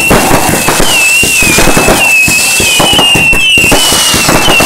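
Fireworks going off close by: rapid, overlapping bangs and crackles from shots launched off the ground, with a high, wavering whistle running through them.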